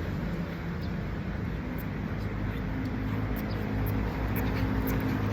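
A steady low engine hum, with a few short faint ticks scattered through it.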